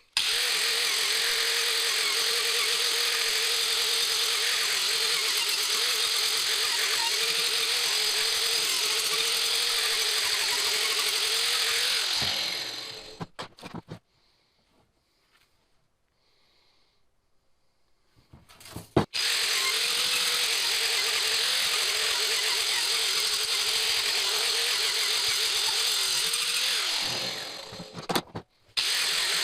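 Angle grinder fitted with a Lancelot chainsaw-tooth carving disc, running and cutting into walnut: a steady motor whine over loud rasping. It runs down and stops about twelve seconds in, starts again after a silent pause of about five seconds, stops again near the end and restarts.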